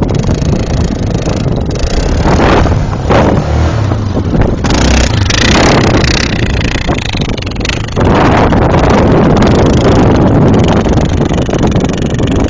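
Yamaha Grizzly ATV engine running and revving as the quad drives through snow, its level rising and falling, louder and steadier from about two-thirds of the way in.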